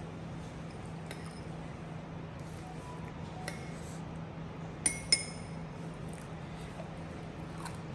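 A metal spoon clinking twice against a ceramic sauce bowl about five seconds in, each clink ringing briefly, with a few fainter taps earlier, over a steady low hum.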